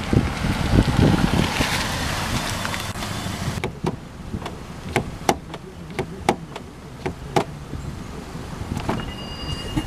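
A loud rush of noise for the first few seconds, then a run of sharp, irregularly spaced taps or knocks, with a faint steady high tone near the end.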